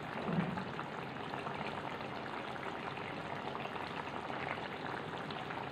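Chicken pieces in a tomato-and-curd gravy simmering in a wok, a steady soft bubbling and crackle.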